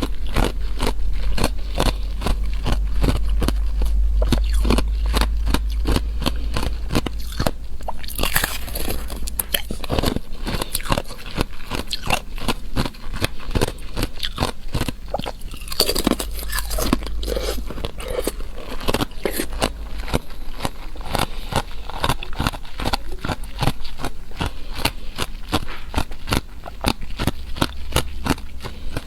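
Thin ice being bitten and chewed close up: a dense, continuous crunching and crackling, with louder bursts of cracking about eight and sixteen seconds in, over a steady low hum.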